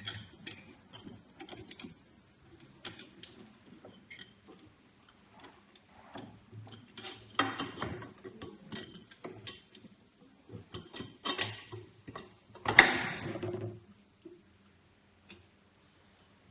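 Light metallic clicking and ticking of screws and nuts being fitted by hand to the sheet-metal stove body, with a few louder clattering scrapes in the middle and near the end.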